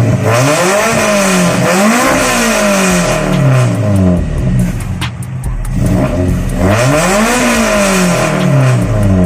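Toyota 4E-FTE turbocharged four-cylinder engine being revved, its note climbing and falling back twice, a few seconds apart.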